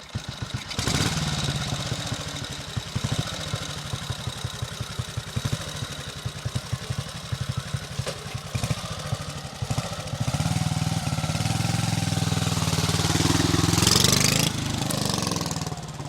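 1942 Royal Enfield C.O.'s 350 cc single-cylinder engine running with a fast, even beat of individual firing strokes. From about ten seconds in it gets louder and climbs in pitch to a peak near fourteen seconds, then drops back.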